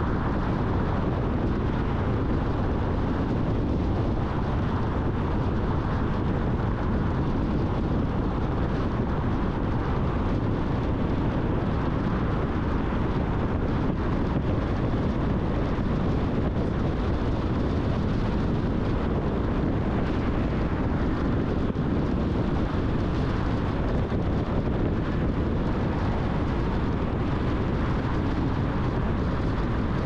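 Steady road noise of a car cruising on a freeway: an even rush of tyres and wind with no distinct events.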